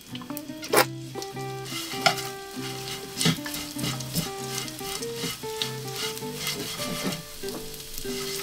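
Shredded dried fish (myeongyeopchae) sizzling in hot oil in a wok while it is stirred with wooden chopsticks. The sizzling builds after about a second and a half, and the chopsticks click against the pan every second or so. Soft background music with a plucked melody runs underneath.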